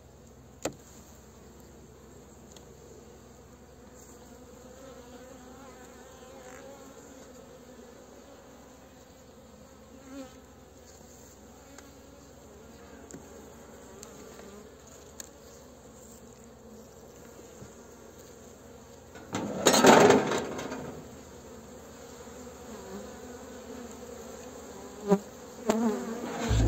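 Honey bees buzzing steadily around an open hive, with occasional sharp clicks. About two-thirds of the way through comes a loud noise lasting about a second and a half.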